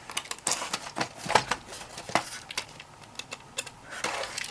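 A small box being handled and opened by hand: a string of light, irregular clicks and taps with short scrapes of the packaging.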